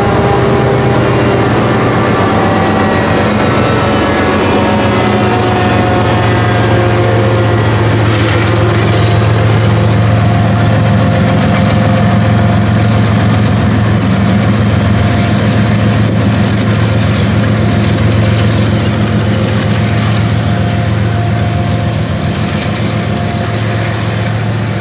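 Two rear-end diesel freight locomotives passing and pulling away, their engines running with a steady low hum and a slight downward drift in pitch, fading a little near the end.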